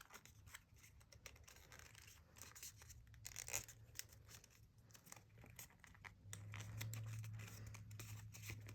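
Faint rustling and crinkling of paper as an origami model is folded and creased by hand. A low steady hum comes in about six seconds in.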